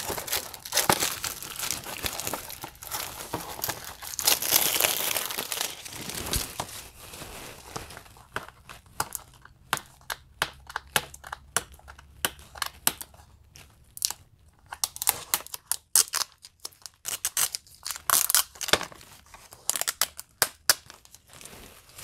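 Plastic shrink wrap being torn and peeled off a Blu-ray case, crinkling. The crinkling is dense for the first several seconds, then thins to scattered crackles and clicks as the last of the film comes away.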